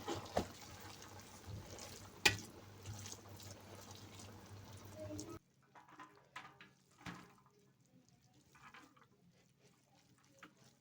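Kitchen handling noises: a few sharp knocks and clicks, the loudest a little over two seconds in, over a low background hiss that cuts off abruptly about halfway through, then only faint scattered clicks.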